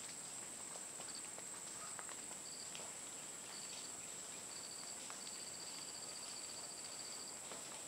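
Countryside ambience: a steady high-pitched insect drone, with short pulsed chirping trills coming and going and one longer trill near the end.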